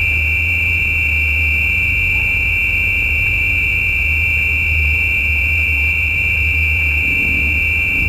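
A tree frog call: one long, unbroken, high-pitched trill held steady at the same pitch, over a low rumble.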